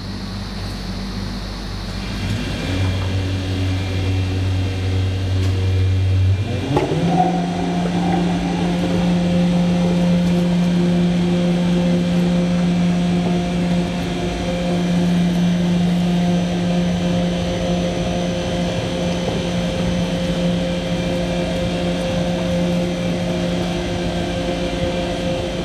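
Seydelmann AU 200 U universal meat grinder running with a steady mechanical hum. About six to seven seconds in it glides up to a higher-pitched hum and then holds steady.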